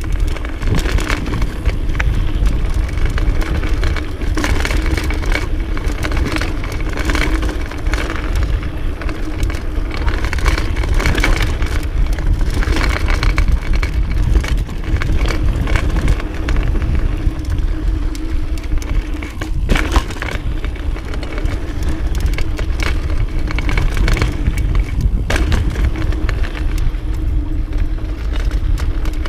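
Mountain bike descending a dirt singletrack: tyres rumbling and crunching over dirt and rocks, with many short knocks and rattles from the bike as it takes the bumps.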